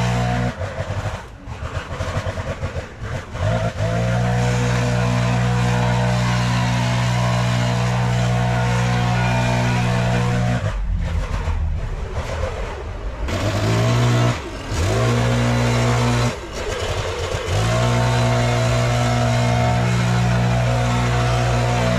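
Gas-powered backpack leaf blower running at high throttle with a steady engine drone. Its note drops away and comes back several times as the throttle is eased off and opened again.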